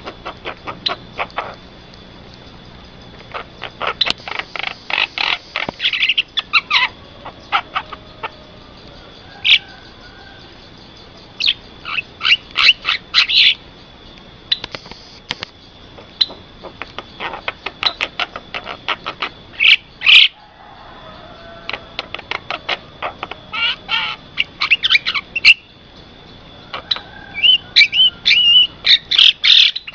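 Javan myna (jalak kebo) calling: runs of rapid, sharp chirps and clicking notes in bursts of a second or two, with short pauses between. A faint steady high tone lies underneath.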